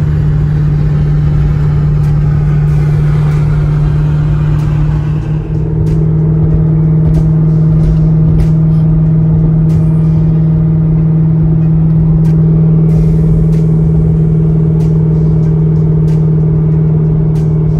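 Corvette C6's V8 engine running steadily at cruising speed, heard from inside the cabin, with a brief dip in level about five seconds in.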